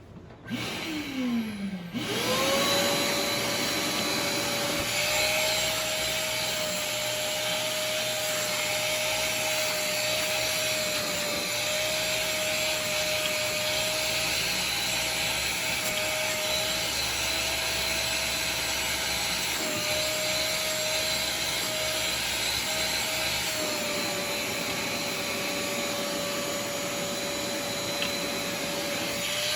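Wet-and-dry vacuum cleaner motor running steadily with a steady whine, its pitch shifting slightly now and then. It comes up to speed about two seconds in, after a brief sound falling in pitch.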